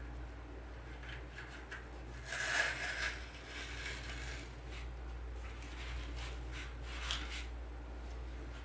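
Dry rustling and scraping as a foam pumpkin on a glued bamboo skewer is pressed and shifted into Spanish moss over floral foam. The loudest scrape comes about two and a half seconds in, with a few shorter rustles before and after, over a low steady hum.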